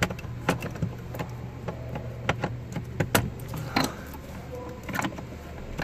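Plastic wiring-harness connectors being handled and pushed into a Ford Super Duty's body control module: scattered sharp clicks and taps of plastic on plastic, irregular throughout, over a steady low hum.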